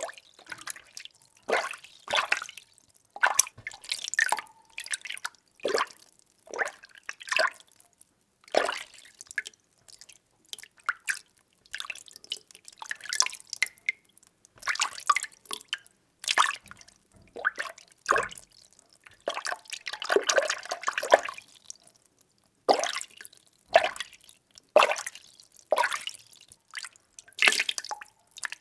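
Water being stirred by hand in a container: irregular small sloshes and splashes, one or two a second, with a longer churning stretch about two thirds of the way through.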